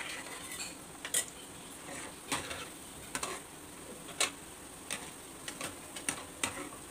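Irregular light clinks and taps of a steel spoon and a wire-mesh frying strainer against metal kadais, roughly one a second, as gulab jamun balls are stirred in sugar syrup and turned in hot oil. A faint steady sizzle of the frying oil runs underneath.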